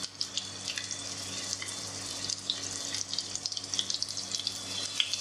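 Marinated chicken and vegetable kebab skewers frying in hot oil in a nonstick pan: a steady sizzling hiss with many small crackling pops.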